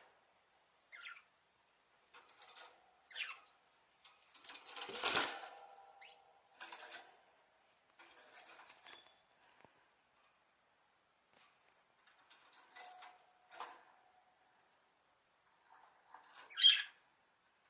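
Budgerigars in a cage giving scattered short chirps and scratchy calls amid rustling. About four seconds in comes a longer flurry of sound, like fluttering, and near the end a sharp chirp, the loudest sound.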